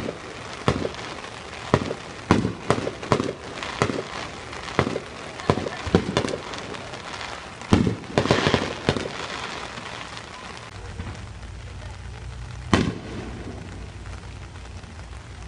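Aerial fireworks exploding in quick succession: about a dozen sharp bangs over the first nine seconds, with a dense crackling burst about eight seconds in. The bangs then stop, leaving steady rain, with one more bang near the end.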